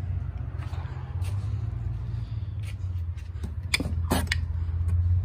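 A connecting rod and piston being handled in a cardboard parts box, giving a few sharp clicks and knocks about three and a half to four seconds in, over a steady low hum.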